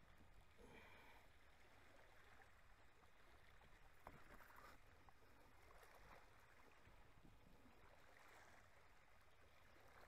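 Near silence: only a faint steady background hiss with a low rumble.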